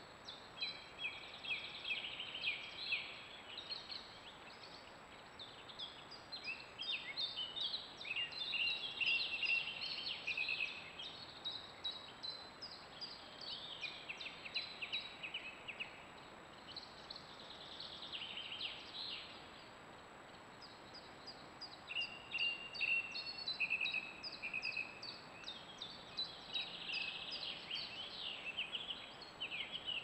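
Songbirds singing: rapid, high chirps and trills in near-continuous phrases, broken by a few short lulls.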